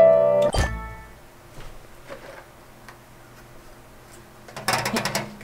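A digital piano phrase breaks off about half a second in, followed by a soft thud. Then come faint scattered pops of a silicone pop-it fidget toy being pressed. Near the end, a louder, dense run of rapid clicking crackles in.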